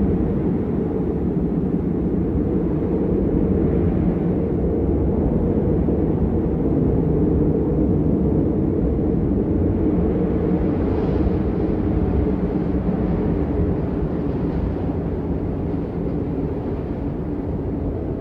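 Steady low rumble of wind, an even roar with most of its weight in the low end and no gusts or sudden changes.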